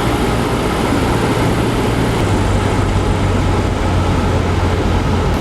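Cessna 172 Skyhawk engine and propeller droning steadily, heard inside the cabin, with a low hum that drops slightly in pitch about two seconds in.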